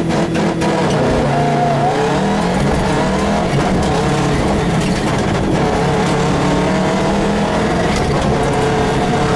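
Rally car engine heard from inside the cockpit, pulling hard away from the stage start. Its pitch climbs and drops several times as it runs up through the gears and into the first bends.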